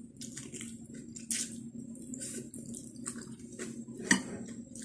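Close-up wet chewing and lip-smacking of someone eating noodles and sweet potato leaves, a quick irregular run of moist mouth sounds. One sharp click comes about four seconds in.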